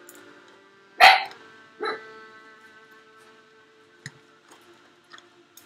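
A dog barking twice, about a second apart, with faint music playing underneath.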